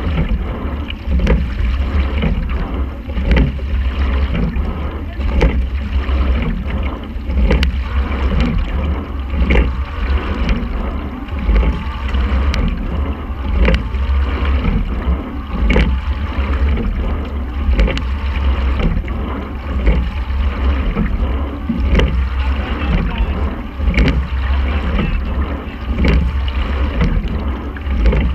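Racing quadruple scull rowing at about 28 to 30 strokes a minute: a sharp knock from the oars in their oarlocks comes once each stroke, about every two seconds, over rushing water and a steady low rumble.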